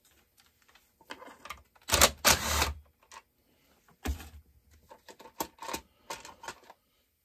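Hand tools and small metal and plastic parts clicking and clattering on a workbench as a chainsaw is taken apart. A louder rattling clatter comes about two seconds in and a knock about four seconds in, followed by a run of lighter clicks.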